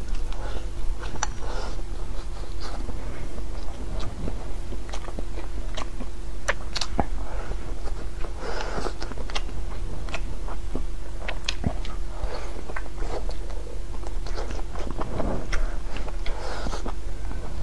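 Close-up mouth sounds of a person biting and chewing braised pork and rice: many sharp clicks and short smacks, irregular throughout.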